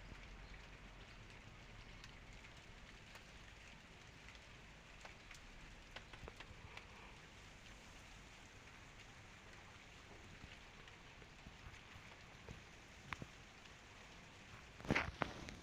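Rain falling steadily, with scattered drops ticking on a hard surface and a couple of louder hits near the end.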